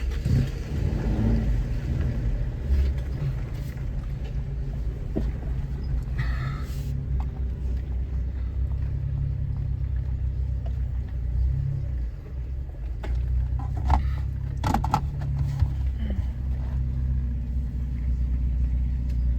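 Off-road vehicle driving on a mountain road: a steady low engine and road rumble, with a few brief knocks or rattles, around six seconds in and again near thirteen and fifteen seconds.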